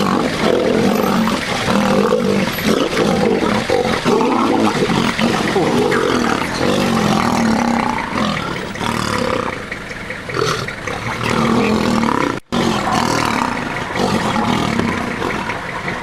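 Two male lions fighting, roaring and growling at each other without pause; the sound cuts out for an instant about twelve seconds in.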